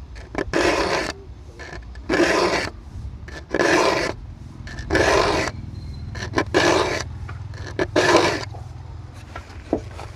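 Bahco saw file rasping across the teeth of a Tekiro handsaw, six strokes about a second and a half apart, sharpening the teeth two strokes per gap. A light click comes near the end.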